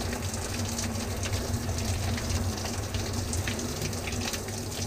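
Handheld shower head spraying water steadily, the spray splashing onto a hand and a fur jacket, with a low steady hum underneath.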